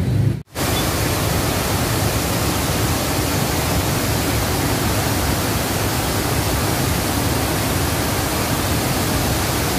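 Steady, loud rush of river water flowing through the Katulampa weir on the Ciliwung river, an even hiss across all pitches. The sound cuts out briefly about half a second in, then carries on unchanged.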